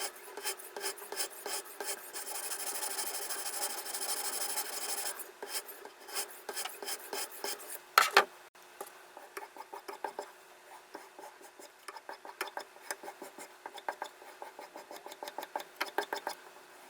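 Diamond sharpening stone rasping along the steel edge of a Victorinox pocket knife blade in repeated back-and-forth strokes on a guided sharpener. There is one sharp, louder clack about halfway through, and the strokes are lighter after it.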